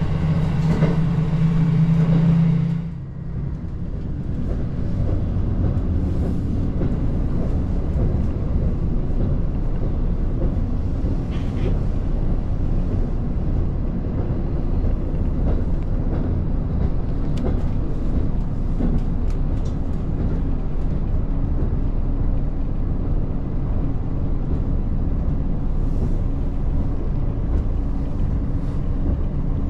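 A diesel railcar's engine runs under power with a steady drone, then cuts back about three seconds in. The train then coasts with a steady rumble of wheels on the rails and a few faint clicks.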